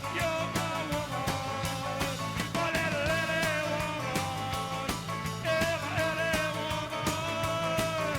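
Background rock music with a steady drum beat and a lead line or singing voice sliding between notes.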